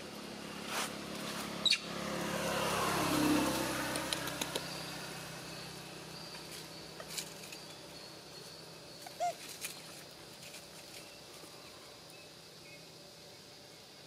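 A motor vehicle's engine passes by. It swells and fades between about two and five seconds in, over steady outdoor background, with a few small sharp clicks and a short chirp later on.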